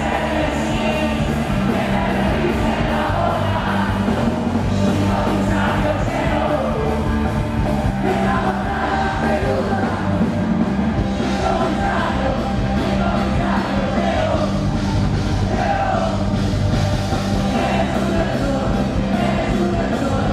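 Live rock band playing loud amplified music, with a singer's voice over the band.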